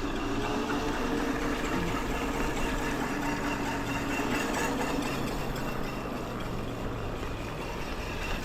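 Wolf King GTR electric scooter running, a steady hum of two tones that rises a little in pitch about half a second in and then holds, over wind and tyre noise. The rear brake disc is rubbing on the pads, from a bent disc or a misaligned wheel.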